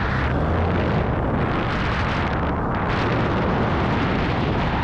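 Loud, steady rush of wind buffeting a helmet-mounted camera's microphone in paramotor flight, with the paramotor engine running underneath.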